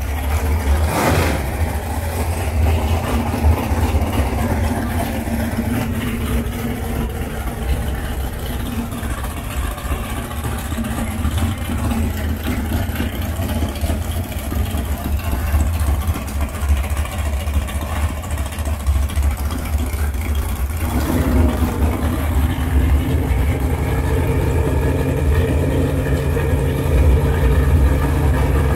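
A supercharged V8 drag boat engine running on its trailer with open headers, a heavy rough idle. It gets louder and fuller after about 21 s.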